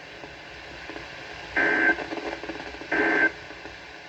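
NOAA Weather Radio sending the Emergency Alert System end-of-message data bursts: two short, identical digital squawks about a second and a half apart, over a steady radio hiss. They mark the end of the warning broadcast.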